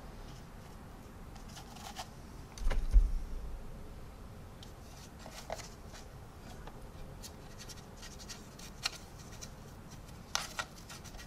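Quiet handling noise from a plastic model kit being turned and moved about: scattered small clicks and light scrapes, with one low thump about three seconds in.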